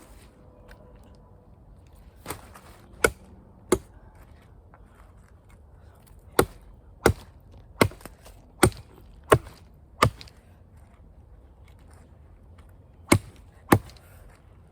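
Wood being chopped through by hand, about eleven sharp strikes in three bursts: a few, then six in a row, then two near the end. The thick piece is not yet cut all the way through.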